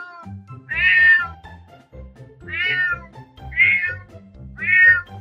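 Kitten meowing: four short, high meows about a second apart, over background music.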